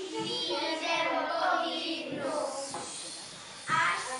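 Children's voices, drawn out through the first couple of seconds, dropping away, then a short louder burst of voices near the end.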